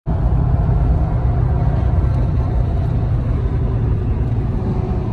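Steady low rumble of road and engine noise inside a car's cabin moving at freeway speed.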